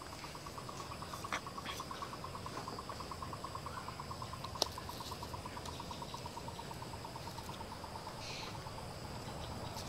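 Evening insect chorus with crickets buzzing steadily, over a long run of rapid, even pulses from a calling animal, about seven a second, slowly dropping a little in pitch and stopping shortly before the end. Two sharp clicks break in, one near the start and one about halfway.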